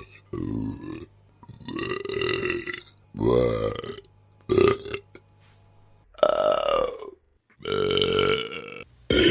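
A person burping again and again: about seven separate burps of differing length, with short pauses between them.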